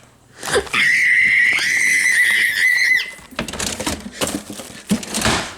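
A person's high scream, held for about two seconds, followed by a couple of seconds of rough hissing noise with a few knocks.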